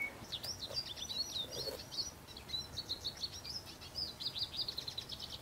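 A songbird singing a long, rapid run of varied high chirps and short whistled notes, ending in a fast trill.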